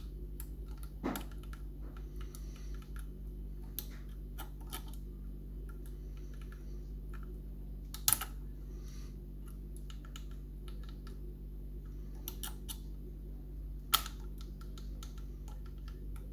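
Small, irregular metallic clicks and scrapes of a lever pick working the levers inside an old ERA Invincible lever mortice lock, with a few sharper clicks about a second, eight seconds and fourteen seconds in, over a low steady hum.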